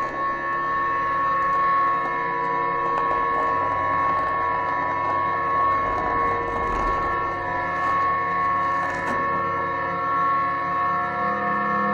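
Background music of sustained, held tones.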